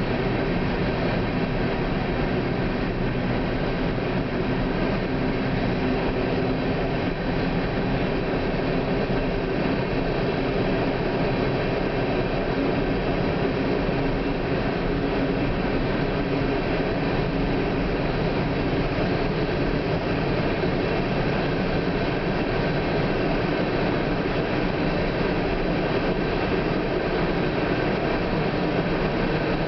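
Coal train hopper cars rolling past: a steady rumble of steel wheels on rail, with a few faint steady tones over it.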